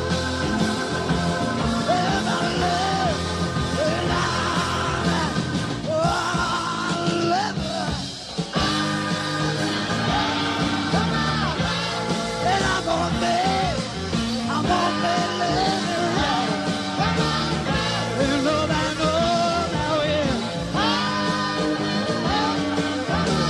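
Rock music with a melody line that slides up and down in pitch over a steady band accompaniment, dipping briefly about eight seconds in.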